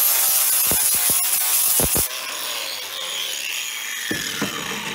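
Angle grinder with an 80-grit flap disc sanding excess epoxy resin flush on a limestone block, with a few knocks, for about two seconds. Then the grinder is lifted off and switched off, its motor winding down with a falling whine.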